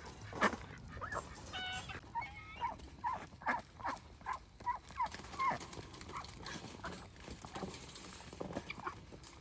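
Ducks and a guinea fowl calling in short, repeated squawks and quacks, with scattered clicks and knocks, while the birds are handled and moved into a cage. The calls come thick and fast in the first half and thin out after about five seconds.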